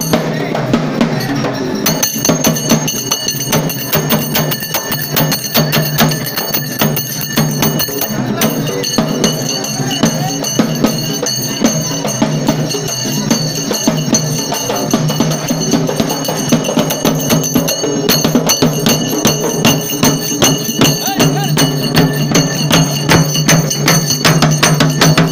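Loud street-procession music driven by fast, steady drumming.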